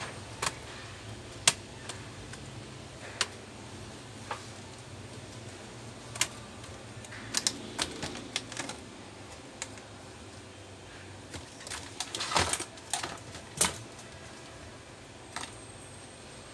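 The plastic bottom case of a Lenovo IdeaPad 330S laptop clicking and snapping as its clips are pried loose and the cover is lifted off. The clicks come in an irregular scatter, with two busier runs, one about halfway through and one a few seconds before the end.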